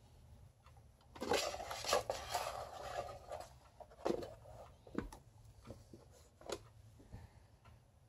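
Lasko 12-inch table fan (model 2027) running with a low steady hum while it oscillates. A burst of clattering and rattling about a second in, then a few scattered clicks and knocks.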